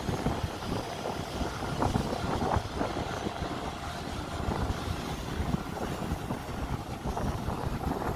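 BNSF intermodal freight train climbing the curve below: a steady low rumble.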